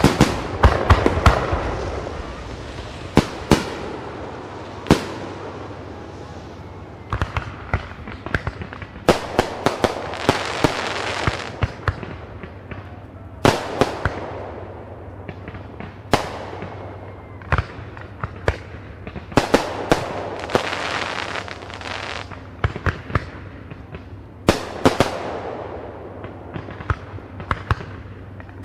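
Fireworks going off: irregular sharp bangs, some single and some in quick clusters, with crackling fizz lingering after the bigger volleys.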